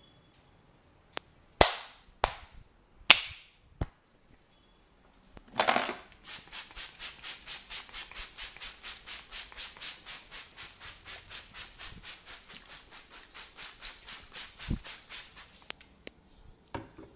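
A masseur's hands striking the body in percussive massage. First come several sharp, loud smacks, then a steady rhythmic tapping at about four strokes a second that stops shortly before the end.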